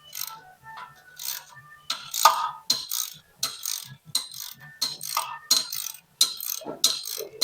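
Metal tools and parts clinking and clattering: irregular sharp metallic strikes, about two a second, each with a brief ring, over a faint steady low hum.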